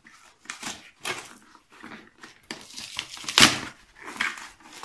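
Parcel packaging being torn open and crumpled by hand, in a string of uneven rips and rustles, the loudest rip about three and a half seconds in.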